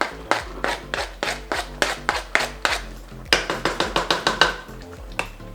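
A rapid, regular run of sharp knocks or taps, about four a second, a little denser and louder a bit past halfway, over soft background music.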